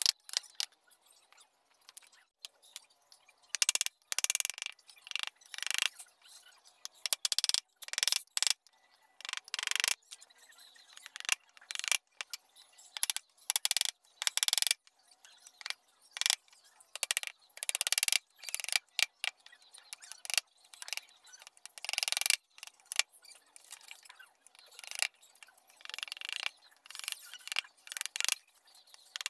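Steel chisels paring and scraping wood by hand, in short rasping cuts that come irregularly, one or two a second.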